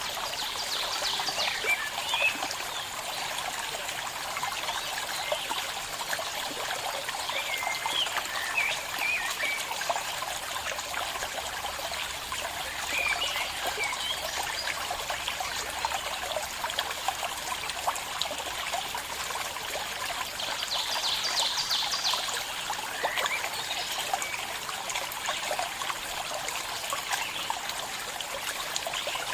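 Small stream of water trickling and burbling steadily, with a few short bird chirps scattered over it and a brief rapid trill about three-quarters of the way through.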